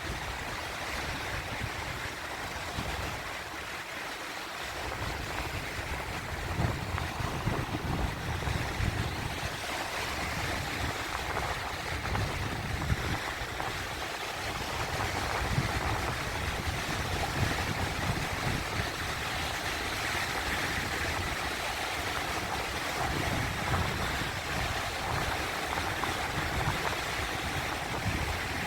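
Sea waves washing in continuously, a steady hiss of surf with irregular low rumbles and a few slightly louder surges.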